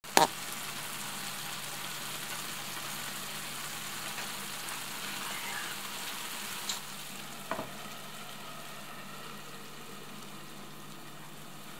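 Buckwheat with meat and vegetables sizzling in an uncovered frying pan as its last water cooks off: a steady hiss, with a sharp click at the start and two small ticks in the middle.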